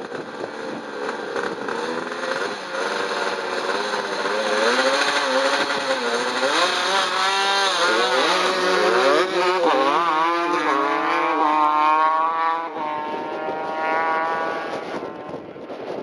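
Two drag-racing motorcycle engines revving at the start line, their pitch rising and falling in repeated blips. Later they climb steeply as the bikes launch down the strip, then drop away near the end.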